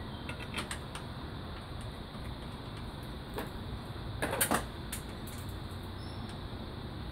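Scattered light clicks and a short metallic clatter about four seconds in as bolts and hand tools are handled while refitting the bolts on the car's front-end brace, over a steady low background noise.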